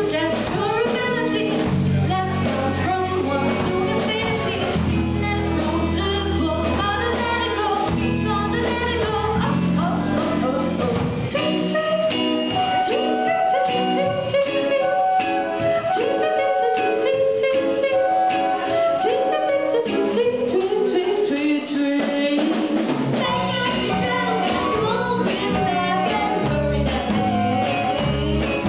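A young live band playing a song: girls singing over electric guitar, drum kit, violin, saxophone and keyboard. The bass drops out for a stretch in the middle, leaving the singing and held melody notes, then comes back near the end.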